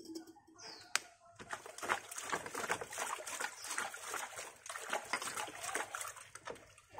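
Water splashing and sloshing in a plastic basin as a small porcelain teapot is scrubbed by hand in soapy water, with a single sharp knock about a second in.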